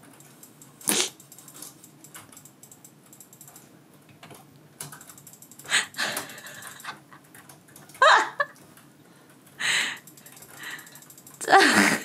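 Light clicking of a computer mouse and keyboard, broken by a few short noisy bursts and two falling, voice-like calls from a small dog, one about 8 seconds in and a louder one just before the end.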